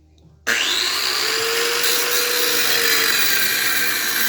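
Power cutting tool starting about half a second in with a rising whine, then running steadily as it cuts through the old exhaust pipe just past the crimp.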